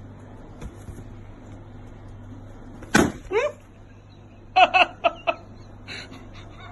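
A puppy giving short high-pitched yips. A sharp click comes about three seconds in, followed by a brief whine that falls in pitch, then a quick run of four yips, all over a faint steady hum.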